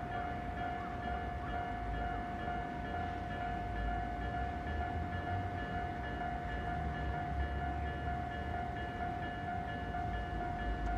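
Japanese railway level-crossing alarm ringing steadily at one pitch, over the low rumble of a train.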